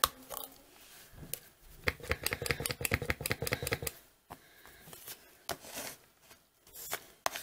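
Metal nail-stamping plate being scraped and handled: a rapid rasping rattle for about three seconds, then a few scattered light clicks and taps.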